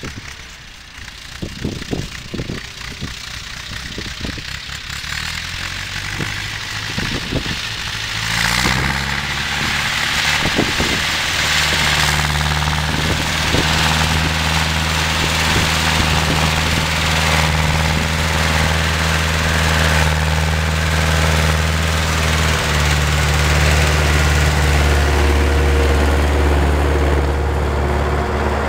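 Ursus C-360 tractor's four-cylinder diesel engine working under load as it pulls a cultivator through wet soil. It gets much louder about eight seconds in as it comes close, then runs steadily at one pitch.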